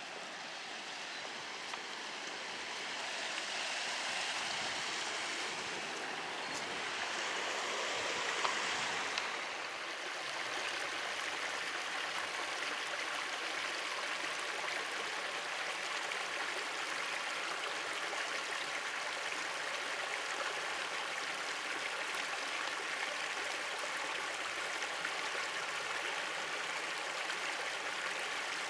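A shallow, rocky woodland stream rushing and splashing over small moss-covered cascades, a steady hiss of running water. The rush swells and dips over the first ten seconds, then holds even.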